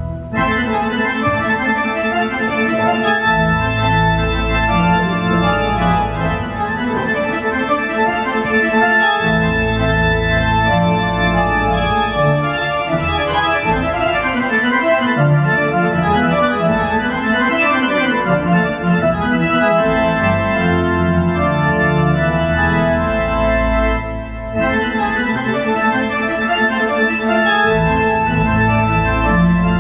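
Korg Nautilus synthesizer keyboards played live: sustained chords with changing low bass notes beneath, with a brief break in the sound about four-fifths of the way through.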